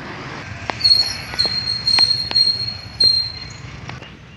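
Road traffic noise: a low steady rumble with a high-pitched squeal held for about two and a half seconds and a few sharp clicks.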